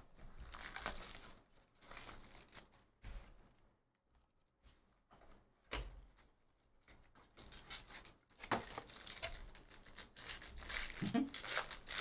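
Wrapping on a Museum Collection trading-card box being torn open and crinkled by hand, in irregular rustling bursts with a few sharp clicks and a short lull partway through.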